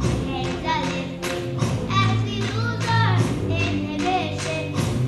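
Two young girls singing an English song over musical accompaniment with a steady beat.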